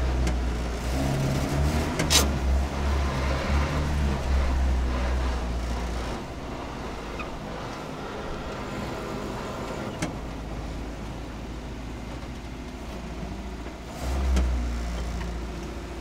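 Engine of a 1954 Renault R2067 Goelette military truck running on a test drive. It is louder for the first several seconds, drops away in the middle, and rises again near the end, with a sharp click about two seconds in.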